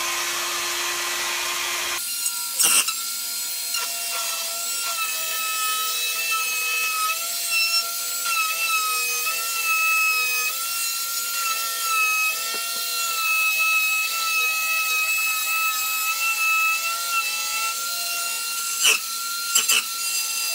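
A handheld high-speed rotary cutting tool running with a steady high whine, its pitch sagging and recovering as the cutter bites into the plastic front bumper grille. There are a few sharp knocks near the end.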